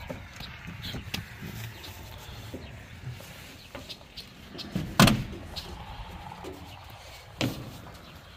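Footsteps and light knocks on the car trailer around an old car, with one loud thump about five seconds in and a smaller one about two and a half seconds later.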